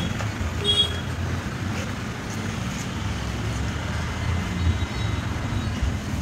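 Steady low rumble of road traffic, with two short high chirps within the first second.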